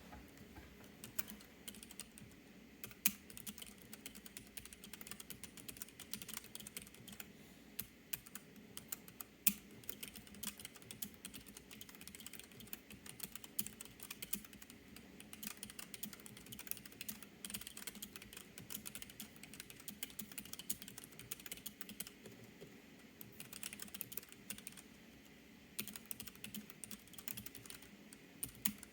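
Typing on a Keychron K3 low-profile mechanical keyboard with red optical switches: a quiet, fast, irregular patter of key clicks, with two short pauses late on.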